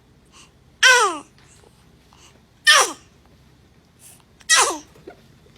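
A baby sneezing three times, about two seconds apart. Each is a short, sharp sneeze whose voice slides down in pitch at the end.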